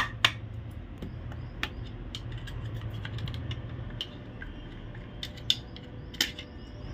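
Hand tools working the bolts of an Ashok Leyland Dost engine block during teardown: scattered sharp metallic clicks and clinks, with a steady low hum underneath.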